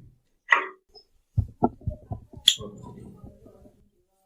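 A quick run of light knocks and clicks, ending in one sharp click about two and a half seconds in: metal parts and tools being handled as an industrial sewing machine is taken apart.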